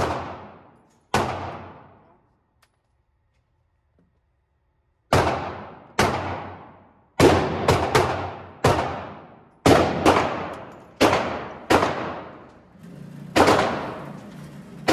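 Handgun shots at an indoor range, fired one at a time, each followed by a long echo off the concrete-and-steel room. There are two shots, a pause of about three seconds, then a string of about ten shots roughly a second apart.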